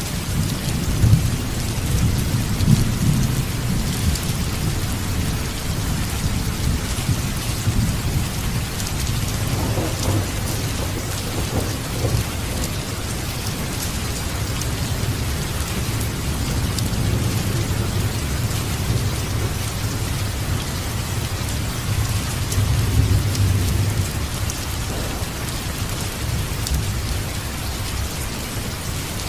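Steady rain with a low rolling thunder rumble underneath, swelling in the first few seconds and again near the end.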